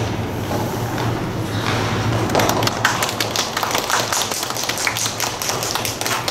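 Scattered hand-clapping from a small audience in an ice rink, picking up about two seconds in and becoming a dense patter of claps, over a steady low hum.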